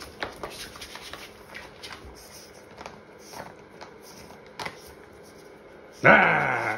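A pug's claws clicking and tapping irregularly on a hard tile floor as it scampers about. About six seconds in, a loud drawn-out voice sliding down in pitch cuts in over it.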